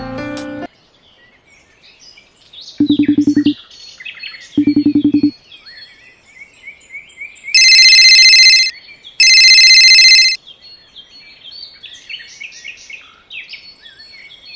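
Birds chirping throughout. About three and five seconds in come two short buzzing rattles, and around eight and ten seconds two loud, steady high tones of about a second each, the loudest sounds.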